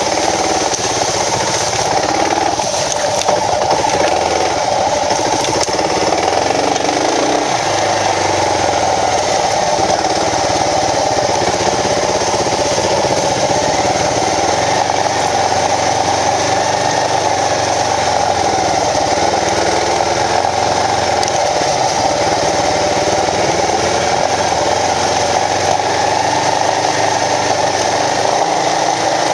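Kawasaki KLR650 single-cylinder four-stroke engine running, heard from on board while riding off-road, its revs rising and falling over and over with the throttle.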